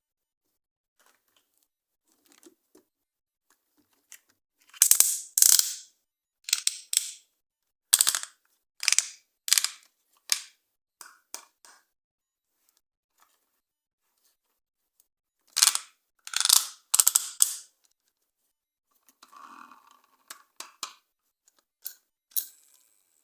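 Plastic toys being handled and worked: a string of short, sharp clicks and clatters in irregular clusters, with quiet gaps between.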